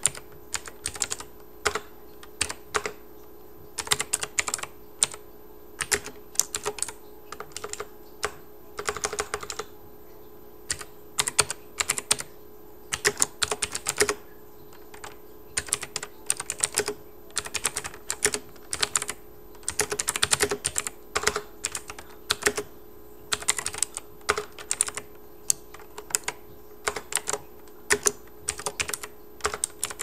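Typing on a Havit tenkeyless mechanical keyboard with clicky blue switches and foam added inside the case. Runs of sharp key clicks come in irregular bursts with short pauses between them.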